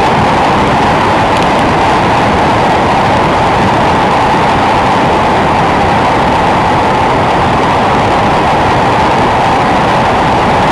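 Wind rushing over a bike-mounted camera's microphone during a fast road-bike descent: a loud, steady rush with a constant mid-pitched hum inside it.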